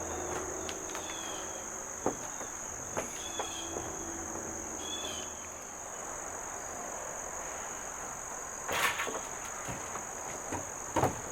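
Crickets keep up a steady high-pitched chorus. Over it come a few sharp metallic knocks and clanks from the galvanized steel panels and bolts being fitted, the loudest about nine seconds in and another near the end.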